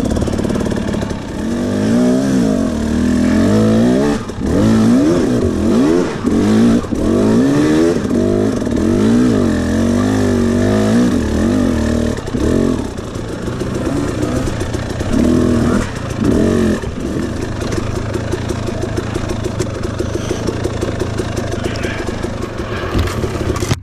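Husqvarna dirt bike engine revving up and down again and again as the throttle is worked, running steadier in the second half.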